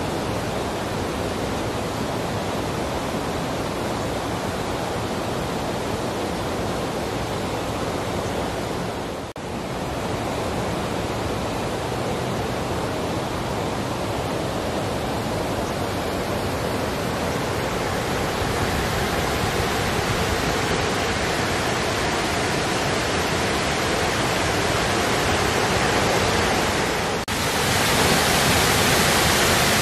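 Man-made waterfall: a steady, full rush of falling water. It drops out briefly twice, about nine seconds in and near the end, and after the second drop it is louder and brighter.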